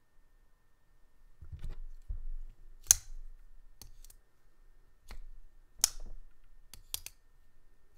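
Benchmade Griptilian folding knife, fitted with raw aluminum scales, being flicked open and shut by hand: a series of about six sharp clicks as the blade swings out and locks and is released and closed, with a few soft handling knocks early on.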